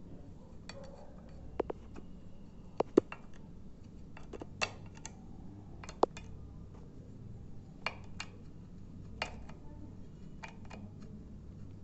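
Irregular metallic clicks and clinks of an IKEA ENUDDEN metal door hanger and its hooks and brackets being handled and fitted onto a door, a dozen or so separate knocks, some ringing briefly; the sharpest come about three and six seconds in.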